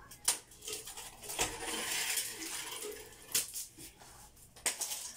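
Sharp metallic clinks and knocks, about four of them spread across a few seconds, with a short stretch of rustling, scraping noise between the second and third.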